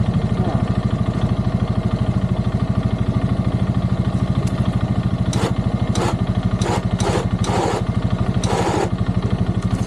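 A Polaris ATV engine running steadily with an even pulsing beat. Several short bursts of noise come in between about five and nine seconds in.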